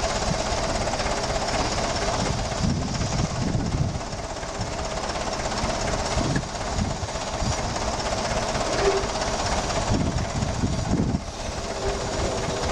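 Old Clark forklift's engine running steadily, with a few low swells as the operator works the controls to hold and position a strapped marble sculpture on the forks.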